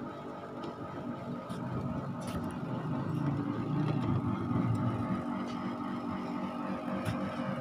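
An engine running steadily, swelling louder a couple of seconds in and then easing a little.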